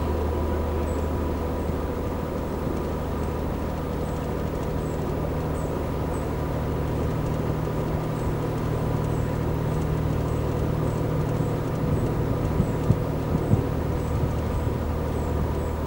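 Narrowboat engine running steadily under way, an even low hum with a few short knocks about thirteen seconds in.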